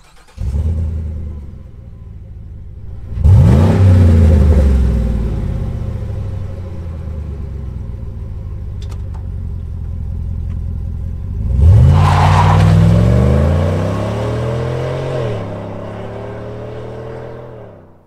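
A GMC Sierra 1500's 6.2L V8 is heard through an MPI Bullnoze stainless cat-back exhaust. It comes in with a short flare that settles to a steady idle. It is revved twice, about three and twelve seconds in, each time rising sharply and falling back to idle over a few seconds, and fades out near the end.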